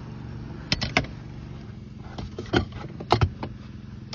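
Round table legs knocking and clacking against the floor and cabinet as they are pulled out from under it, several sharp knocks over a steady low hum.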